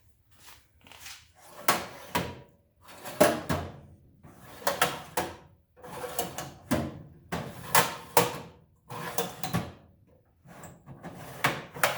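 Metal drawers of a Snap-on tool chest sliding open and shut one after another, about eight times, each slide ending in a sharp knock against its stop.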